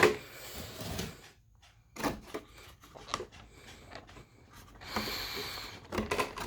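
Toy packaging being handled: rubbing and scraping with scattered light clicks, and two short stretches of rustling.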